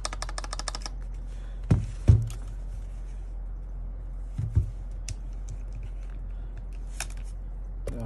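Mechanical keyboard keys with freshly lubed Costa stabilizers being tapped fast, a quick run of clicks in the first second, on the stabilized Backspace key; a light tick is still there, which the owner hears as improved but not yet fully balanced. Later come a few heavier thumps and single clicks.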